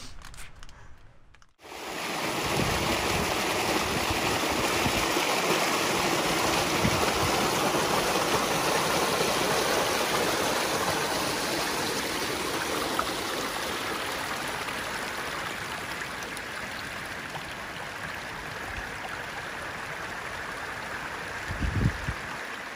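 A small stream running over rocks: a steady rush and trickle of water that starts abruptly about a second and a half in. A few low rumbles come near the end.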